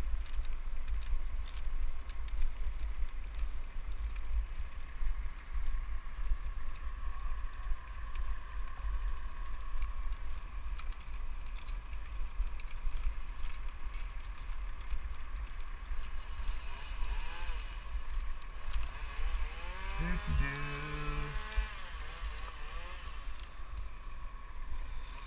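Climbing and rigging hardware clinking and rattling in short clicks over a steady low rumble. Around twenty seconds in, a brief warbling tone slides up and down.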